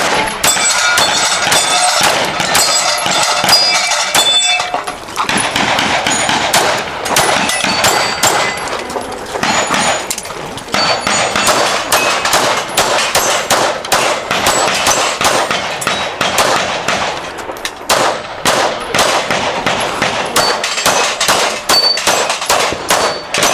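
Rapid strings of pistol shots, with steel targets ringing from hits, the ringing tones hanging after many of the shots. There are brief pauses in the firing about four and a half seconds in and again near eighteen seconds.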